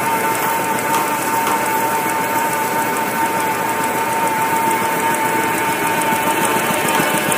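Automatic V-fold facial tissue and towel paper folding machine running at steady production speed: a continuous rapid, even mechanical clatter from its rollers and folding gear, with a steady whine under it.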